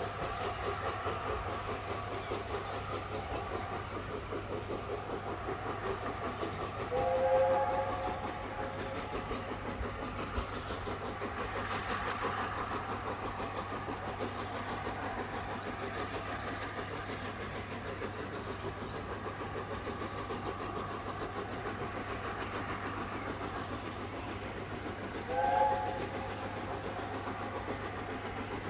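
Heritage railway train running, a steady rail noise, with two short blasts of the locomotive's whistle: a longer one about seven seconds in and a shorter one near the end.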